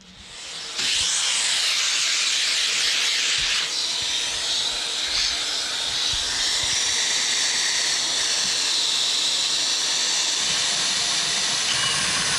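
A vacuum cleaner switched on: its motor spins up over about the first second, then runs steadily with a loud airy hiss.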